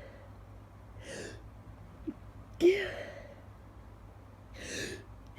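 A person's stifled sneeze about two and a half seconds in, coming after a sharp in-breath. Another quick in-breath near the end builds toward the next sneeze.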